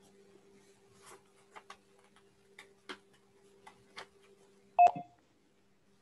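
A short electronic beep about five seconds in, over a steady low hum and faint scattered clicks.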